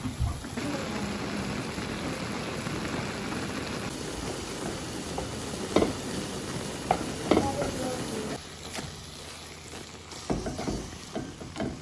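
Noodles, mushrooms and zucchini sizzling in a frying pan as they are stirred with wooden chopsticks, which click against the pan a few times. The sizzle dies down about eight seconds in.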